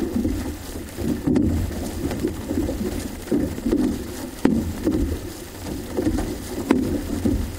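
Outrigger canoe paddles catching and pulling through the water in a rhythmic series of splashing strokes, with a few sharp knocks among them and a steady low rumble underneath.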